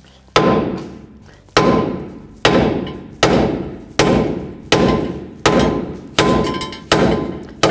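A hammer strikes the old lower ball joint in the steel lower control arm of a 2008 Chevy Silverado 1500, driving the press-fit joint out without a press. There are about ten sharp metal blows, one roughly every three-quarters of a second, each ringing briefly.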